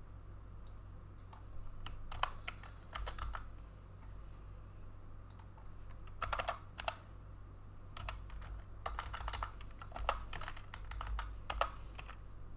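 Typing on a computer keyboard: several short runs of keystrokes with pauses between them.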